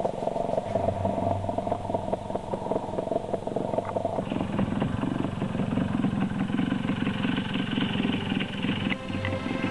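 BSA Bantam D14's two-stroke single-cylinder engine idling steadily after a complete rebuild, heard right at the exhaust. About four seconds in the sound changes as it is heard from further off.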